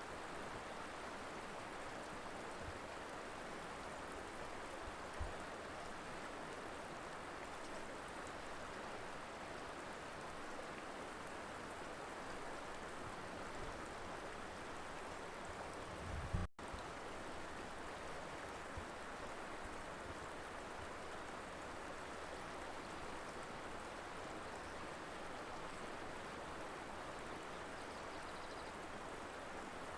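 Colorado River flowing, a steady even rush of water. A brief low thump about sixteen seconds in, with a momentary cut in the sound right after it.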